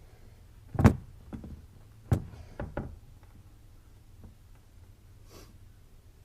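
A series of sharp knocks and thuds: a loud one about a second in, another about two seconds in, followed by a few smaller knocks, and a brief rustle near the end.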